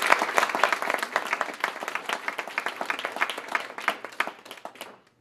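Audience applauding: a dense round of clapping that thins out and stops about five seconds in.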